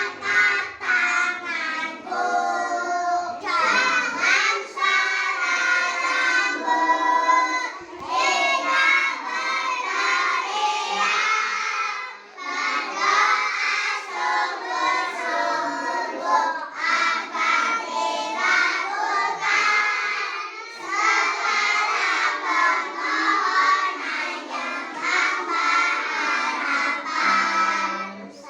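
A class of young children singing a song together in chorus, continuously and at full voice.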